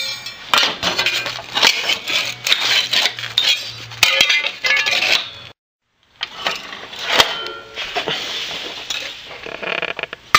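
Miter saw blade cutting through aluminium plate, a dense metallic clatter and high ringing as the teeth bite, with aluminium chips clinking. The sound stops briefly a little past halfway, then the cutting resumes.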